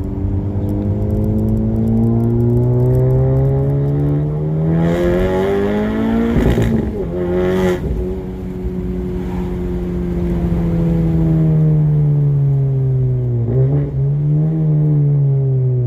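Honda Civic Type R's turbocharged four-cylinder with an aftermarket exhaust, heard from inside the cabin while driving: the engine note climbs steadily under acceleration for about six seconds, drops at a gear change, then settles into a steady cruise that slowly eases down, with a short rise again near the end.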